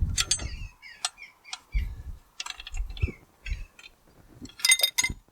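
Metal tractor axle parts and pipework being handled, with scattered clicks and knocks and a few dull thumps, and a quick rattle of metal clinks near the end.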